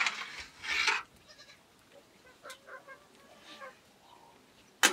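Goats bleating: one loud call in the first second, then a few fainter calls, with a sharp knock near the end.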